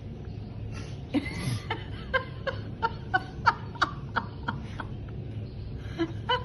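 A person laughing in a run of short, rhythmic bursts, about three a second, that breaks off and picks up again briefly near the end, over a steady low background hum.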